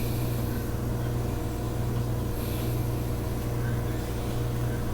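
Steady low hum, as from a running appliance or fan, with a faint brief rustle about two and a half seconds in.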